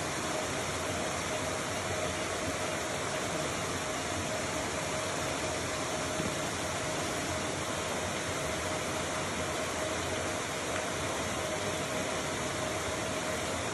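Steady, even background noise with a faint constant hum in it and no distinct events.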